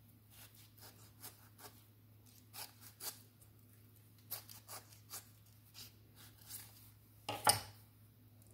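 Kitchen knife cutting around an avocado held in the hand: a string of short, scratchy cuts and scrapes through the skin, with one louder scrape or knock near the end, over a faint steady low hum.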